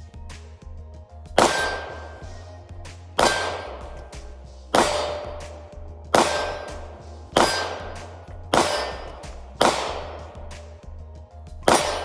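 A gun fired eight times at an uneven pace, about one to two seconds between shots, each shot sharp and loud with a long echoing tail, over background music.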